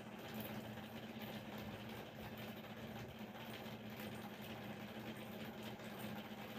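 Steady low hum over a constant hiss, unchanging throughout.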